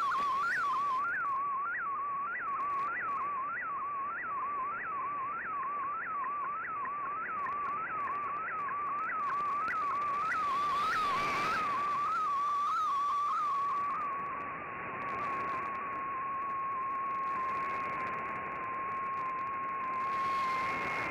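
Slow-scan television (SSTV) picture signal from a shortwave broadcast, received on an Icom IC-R8600: a steady whistling tone with a brief rising-and-falling pitch blip about twice a second, one per scan line. About two-thirds of the way through, the blips shrink and stop, leaving a plain steady tone. A short rush of static hiss comes a little past the middle.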